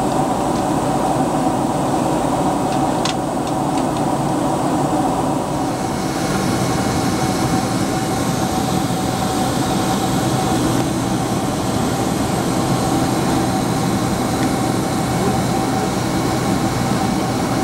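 Steady cabin noise of a Boeing 767-300ER in flight, heard from a window seat beside the wing engine: the even rush of the jet engines and airflow with a steady hum over it. A few faint clicks about three seconds in.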